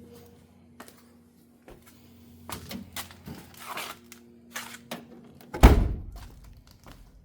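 Rustling and knocking handling noises, then one heavy thud about two-thirds of the way through that rings briefly, over a steady hum.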